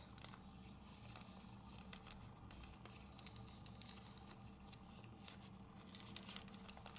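Folded origami paper rustling and crinkling in the fingers as a flap is worked under another part and tucked into its pocket, with many small irregular crackles.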